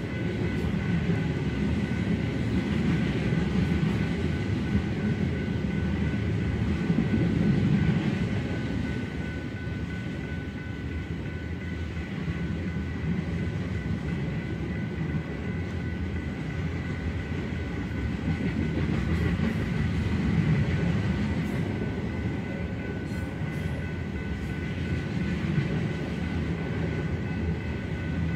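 Loaded crude oil tank cars of a freight train rolling steadily past over a grade crossing: a continuous low rumble of wheels on rail, with a steady high-pitched ringing tone above it.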